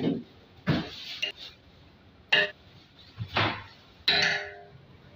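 Steel spoon knocking against the rim of a large aluminium cooking pot, about five separate clinks with a short metallic ring, as ground spices are tapped off the spoon into the pot.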